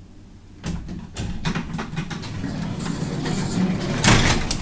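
1967 Flohr-Otis elevator's sliding doors clattering: a run of clicks and clanks that starts about a second in and builds to a loud bang near the end.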